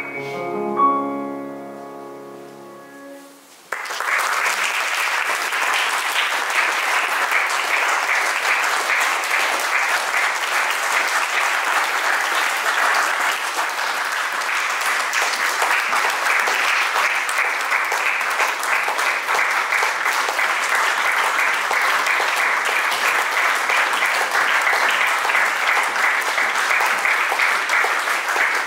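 A grand piano's final chord rings and fades over about three seconds, then audience applause starts suddenly and carries on steadily.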